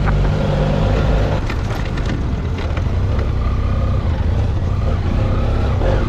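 BMW trail motorcycle engine running steadily as the bike rides along a loose gravel track.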